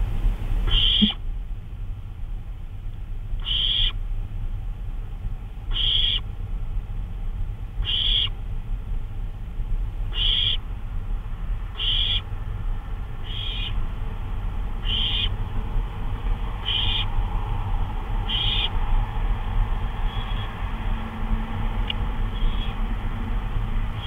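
Barn owl giving short, hissing snore calls, about one every two seconds, a dozen in all, over a steady low electrical hum.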